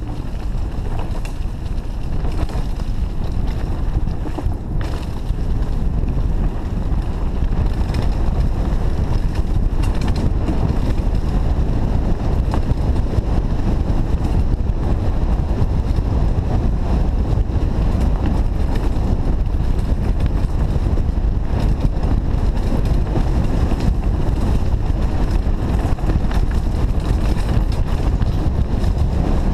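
Steady wind noise on the microphone of a camera riding on a Trek Fuel EX 8 full-suspension mountain bike descending a dirt singletrack at speed, with tyre rumble and small irregular clicks and rattles from the bike over the bumps.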